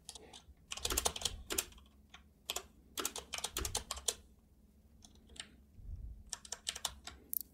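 Typing on a computer keyboard, with clusters of quick keystrokes separated by short pauses.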